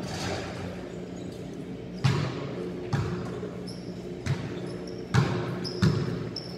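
Basketballs bouncing on a hard court floor during a warm-up: about half a dozen irregular thuds from several balls, echoing in a large hall.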